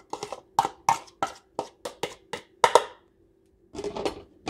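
Quick, even taps of a small bowl being knocked to shake minced garlic out into a pot, about three a second, stopping about three seconds in; then a short rustling scrape near the end.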